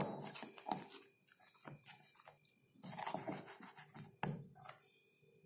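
Hands kneading a soft ball of flour dough on a wooden rolling board: faint, irregular pressing and rubbing sounds, with a light knock a little over four seconds in.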